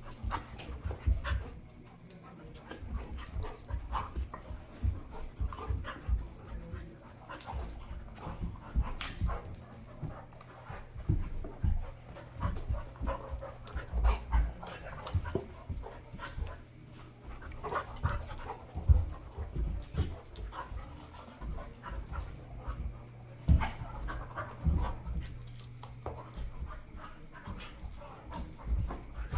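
Two dogs play-fighting: panting, with irregular scuffles, bumps and knocks as they tussle.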